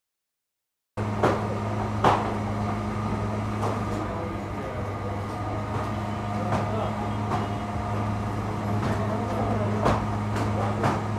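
Steady electric hum of bakery machinery with scattered knocks and clatter, starting abruptly about a second in.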